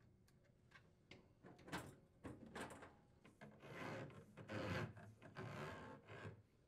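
Plastic dishwasher drain hose being pulled through a hole in a wooden sink cabinet wall, rubbing and scraping against the edge in several short strokes, after a few faint clicks.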